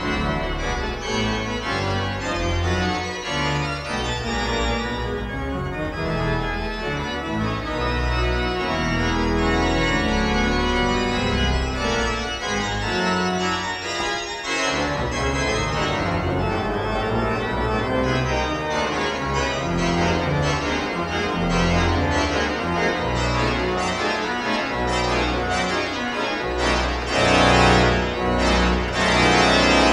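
Pipe organ playing a fast contrapuntal dance with a busy pedal bass, building through a crescendo to full organ and short detached chords, loudest in the last few seconds.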